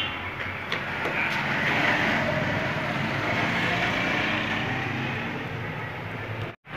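Steady background noise, a continuous low rumble and hiss with no distinct events, cut off for a moment near the end.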